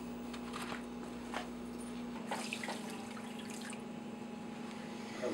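A few light kitchen knocks and clinks, then dry white rice poured from a cup into a pan of water with soft splashing, over a steady low hum.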